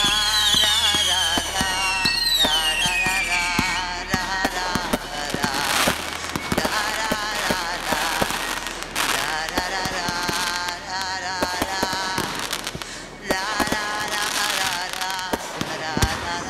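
Fireworks going off in quick succession: several whistles falling in pitch in the first few seconds, then many sharp cracks and bangs as the shells burst.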